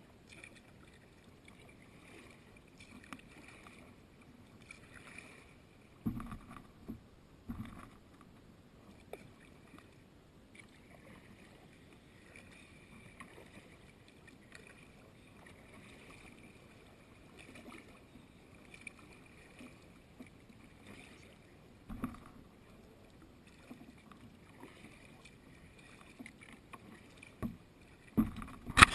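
Kayak moving on calm river water under quiet paddling, with soft water sounds. A few short, dull knocks come at intervals, and a louder burst of knocking and clatter comes right at the end.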